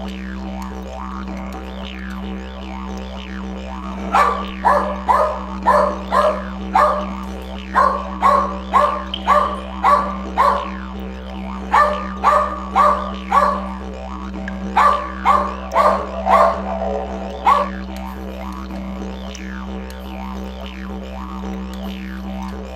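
Background music with a steady low drone, over which a small dog barks repeatedly, about two barks a second, in three runs through the middle of the stretch.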